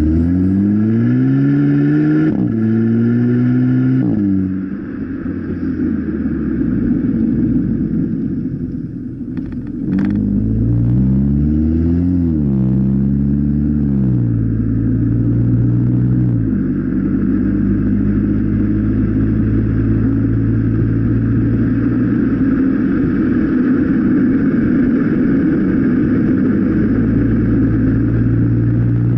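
Volkswagen Golf Mk7 1.4 TSI turbo four-cylinder heard at the tailpipe through an exhaust with the rear muffler removed and a 3-inch Y-pipe: revved up and down several times, eased off, a short click about ten seconds in, more revs, then held steady for the second half.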